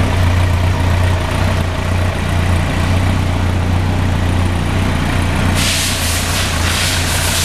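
2003 Yamaha YZF-R1's inline-four engine idling steadily with a low hum. About five and a half seconds in, a pulsing hiss starts on top of it.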